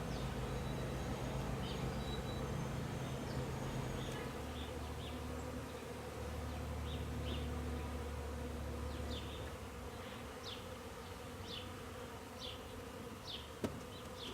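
Honeybees buzzing in flight around a hive: a steady drone that shifts lower in pitch about four seconds in. Short high chirps recur throughout, and there is a single sharp click near the end.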